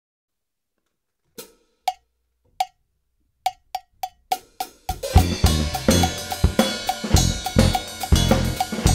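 A metronome click track ticks alone as a count-in, then from about five seconds in a drum kit plays along with a fusion backing track: snare, bass drum and cymbals over the bass line, with the click still loud in the mix.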